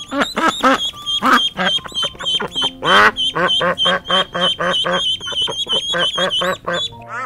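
Birds calling in a rapid run of short repeated calls, about three or four a second, over a steady high tone.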